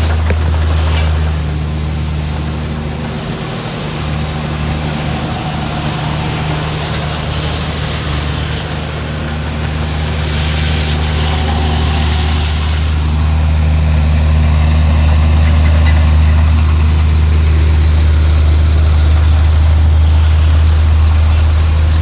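Heavy diesel earthmoving machinery running steadily with a deep engine drone. It eases off slightly a few seconds in and builds up again toward the second half.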